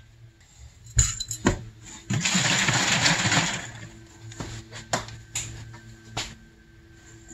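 Snowmobile carburetors being handled and set in a bench vise: sharp metal knocks and clinks, with a louder, noisier stretch lasting about a second and a half near the middle and a few more separate knocks after it.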